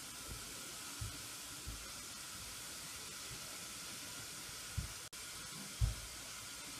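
Quiet steady hiss with a few soft, low thumps, the loudest about six seconds in; the sound cuts out for an instant about five seconds in.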